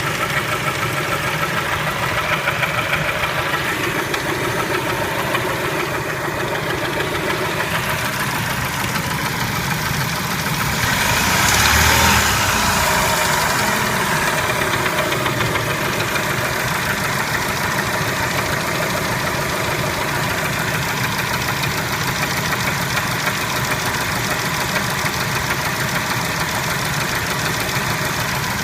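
Kia Spectra engine idling with a knock, revved up briefly about eleven seconds in and settling back to idle.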